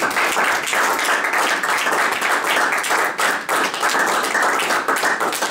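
Audience applauding: many hands clapping in a steady, loud patter.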